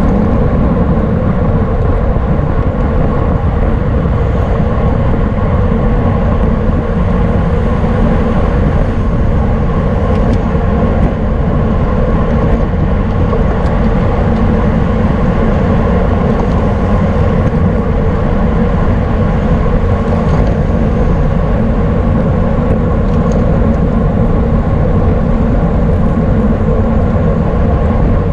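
Wind rushing over the microphone of a camera on a racing bicycle at speed: a loud, steady rumble with a constant hum under it.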